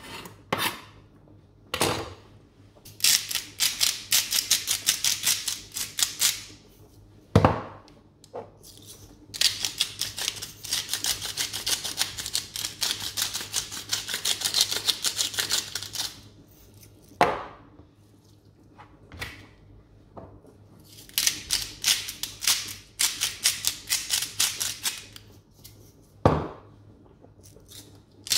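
Food preparation on a plastic cutting board: three long runs of rapid, fine clicking-scraping strokes, several seconds each, with a single knock between runs.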